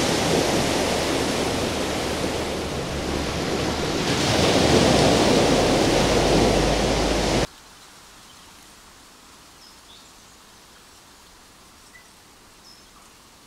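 Loud, steady rush of sea surf that swells about halfway through and then cuts off abruptly about seven and a half seconds in. What follows is a faint hiss with a few small high blips.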